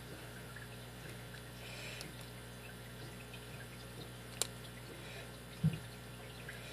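Faint, irregular metallic ticks of a lock pick and tension wrench working the pins of a Master Lock No. 5 laminated padlock during single-pin picking, over a steady low hum. One sharper click comes partway through, followed by a dull knock about a second later.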